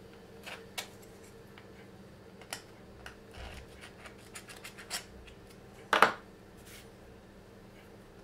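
A small round file scraping and clicking in the freshly drilled holes of a 3D-printed plastic part, clearing out leftover bits of plastic: a scatter of short scratches and clicks, with one louder clack about six seconds in.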